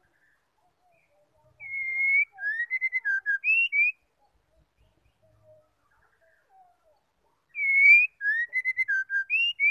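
Female white-rumped shama singing: the same clear whistled phrase twice, about six seconds apart, each a long held note followed by a quick run of short slurred notes, with faint soft low notes in between.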